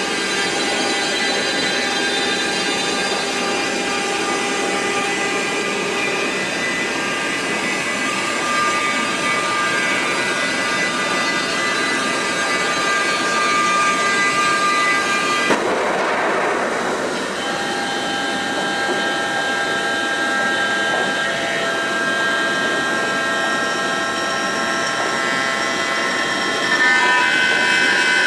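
CNC machining center milling AL6061 aluminium: the spindle at 8,000 rpm drives a 10 mm flat end mill through a contour cut under coolant, giving a steady whine of several high pitches over a hiss. About halfway through a brief rush of noise breaks in, and the whine then settles at different pitches; it changes again near the end as a chamfer mill cuts.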